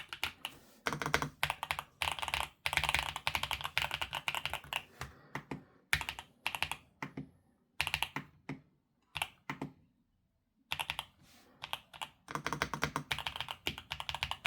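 Typing on a YUNZII B75 Pro mechanical keyboard: fast runs of keystroke clicks in bursts, with short pauses between them.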